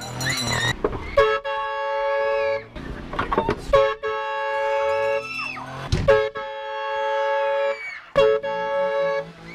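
Train horn blown in four long blasts, each about one and a half seconds, with short gaps between them. Each blast is a steady chord of several notes at once, with short noisy bursts in the gaps.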